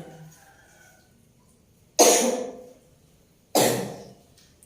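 A woman coughing twice, two harsh coughs about a second and a half apart. It is a persistent cough that has not cleared up.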